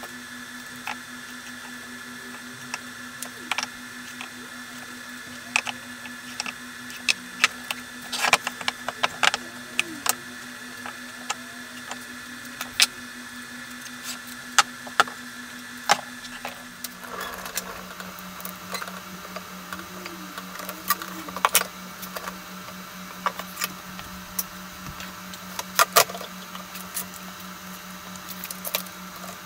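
Scattered clicks and knocks of a tape measure and heavy laminated softwood beams being handled and set down on a workbench, over a steady low hum that drops in pitch about two-thirds of the way through.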